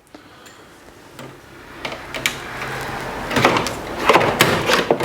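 Plastic mesh filters being slid back into a wall-mounted split-system air conditioner's indoor unit: plastic scraping against plastic, with a series of light clicks and knocks that come thicker and louder in the second half.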